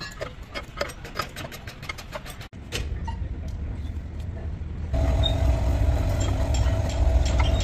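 Diesel engine running steadily, its low rumble stepping up louder about halfway through with a steady hum over it. Before that come a couple of seconds of sharp metallic clicks and taps.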